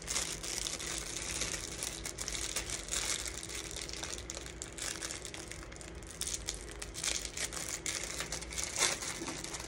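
Plastic packaging being handled and pulled open by hand: a run of irregular crackling rustles.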